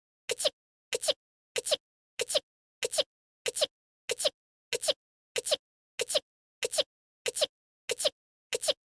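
A voiced anime sneeze, one short recorded clip repeated over and over about every two-thirds of a second, with silence between. Each repeat is a quick two-part burst, the second part louder.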